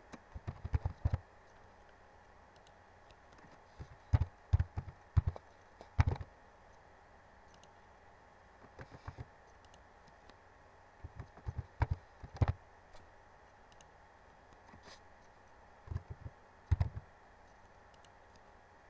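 Computer keyboard being typed on in short bursts of key clicks, about five bursts with pauses between them.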